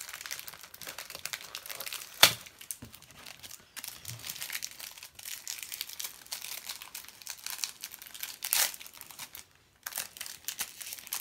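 Foil trading-card pack wrapper crinkling and tearing as Match Attax packs are opened and handled, with a sharp crackle about two seconds in and another near the end.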